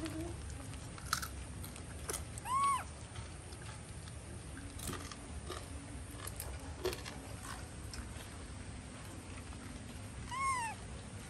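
Monkeys squabbling over a banana: two short high squeals, each rising then falling, one about two and a half seconds in and another near the end, with scattered clicks, knocks and chewing between them.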